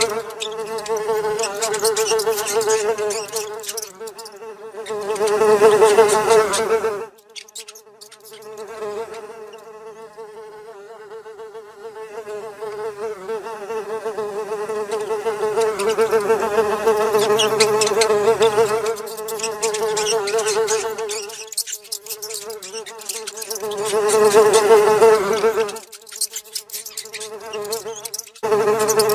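A fly buzzing: a steady, slightly wavering buzz that swells and fades as the fly moves closer and away. It is loudest about six seconds in and again around twenty-five seconds, and weakest between about seven and twelve seconds.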